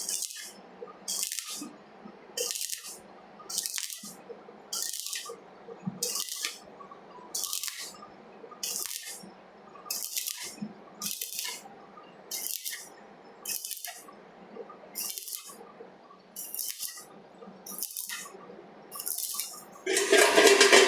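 Even back-and-forth scrubbing strokes on metal, about one every 1.2 seconds, typical of a steel wire brush cleaning the steel before welding. About twenty seconds in, a loud steady crackle starts: the stick-welding arc striking and running.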